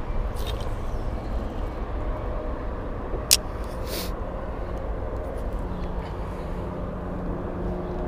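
Steady low outdoor rumble of distant traffic, with a single sharp click a little over three seconds in and a short rustle just before four seconds. A faint low steady hum comes in a little past halfway.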